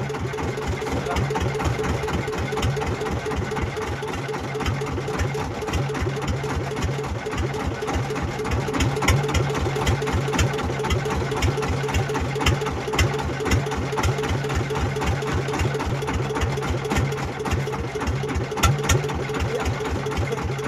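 Small wooden fishing boat's engine idling steadily with an even, fast low chugging, with a few sharp clicks over it near the middle and again near the end.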